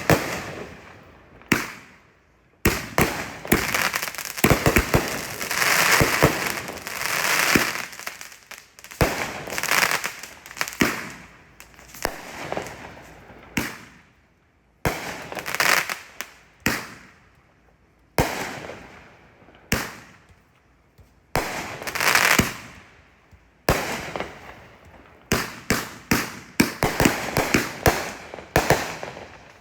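Consumer fireworks going off in quick succession: sharp bangs, each followed by a second or two of hissing crackle, with short lulls between the volleys.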